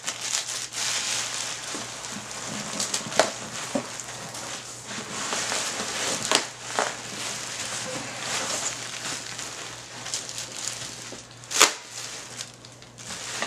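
Bubble wrap and plastic packing being pulled and crinkled while a package is unwrapped, with a few sharp clicks and knocks, the loudest near the end.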